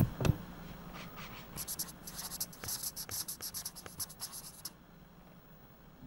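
Two sharp clicks, then about three seconds of rapid, irregular dry scratching ticks over a faint low steady hum.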